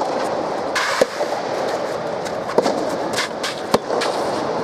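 Racket strikes on a soft tennis ball: three sharp hits about a second to a second and a half apart, as in a rally, over steady crowd and arena noise.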